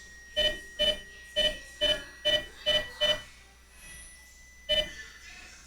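Eight short electronic beeps: seven in a quick even run, about two a second, then one more about a second and a half later. They are key-press beeps from an Ameritec AM-48 transmission test set as its buttons are pressed to step the frequency setting.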